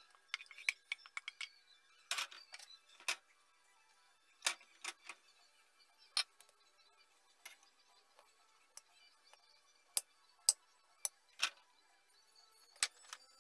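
Cutlery clinking and tapping against a glass serving plate as food is put on it and potatoes are cut: scattered, irregular sharp clicks.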